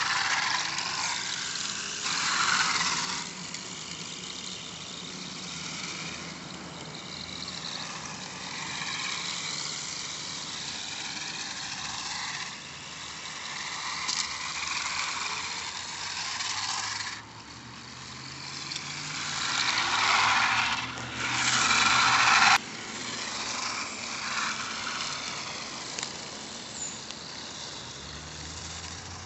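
Outdoor background noise with road traffic passing, rising and falling in loudness and swelling loudest about twenty seconds in before dropping off suddenly.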